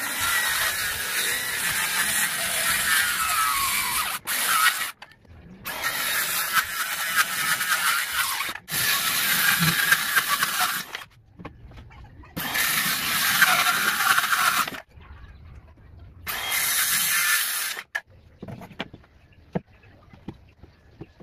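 Bosch circular saw running and cutting through 3/4-inch marine plywood, a loud whining rip in several runs of a few seconds each that start and stop abruptly. After that, only a few light knocks of wood being handled.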